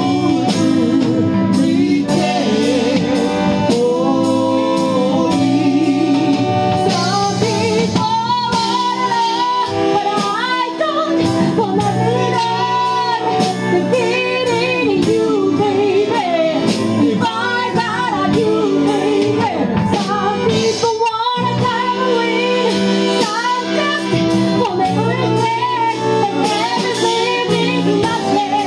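A woman singing a slow song with wavering, held notes, backed by a live band playing with a steady beat.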